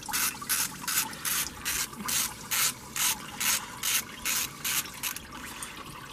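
Ratchet wrench being worked back and forth, clicking in quick even strokes about two and a half a second, undoing the small Torx bolt on the water pump; it stops about five seconds in.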